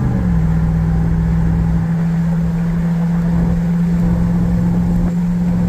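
Ram TRX's supercharged 6.2-litre Hellcat V8 droning steadily inside the cab at highway cruise, over road and wind noise. The engine note drops a step in pitch just after the start, then holds one steady note.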